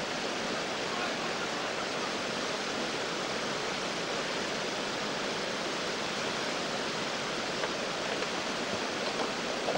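Whitewater rapid: river water rushing and churning over rocks, a steady, even noise.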